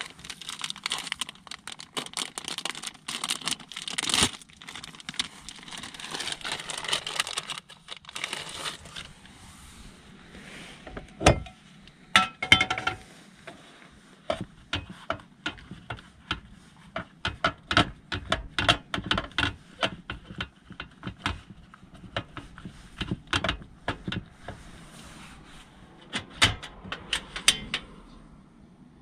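Rustling and crinkling of food packaging and a flatbread wrap being handled, then a sharp metal clink with a short ring, followed by many small irregular taps and clicks as the wrap and a small pan are set on a portable gas stove.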